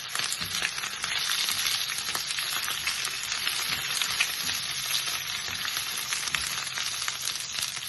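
Ghee sizzling and crackling in a pan as partly cooked rice, curry leaves and whole spices fry in it, with many small pops throughout.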